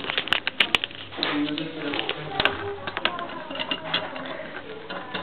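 A scatter of light clicks and taps, among them, about four seconds in, a finger pressing the dual-flush push button on the Corona Ecoclean toilet's tank.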